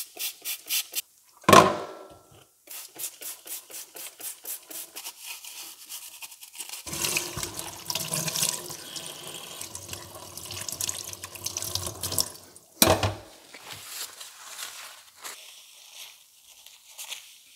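Trigger spray bottle squirted in quick runs at a small plastic actuator housing over a stainless steel sink, then the tap running as the part is rinsed and rubbed by hand under the water. Two sharp knocks, one about a second and a half in and one just after the tap stops.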